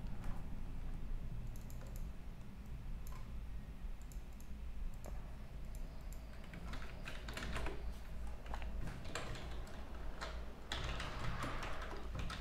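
Typing on a computer keyboard: scattered key clicks that come in quicker runs twice, over a steady low hum.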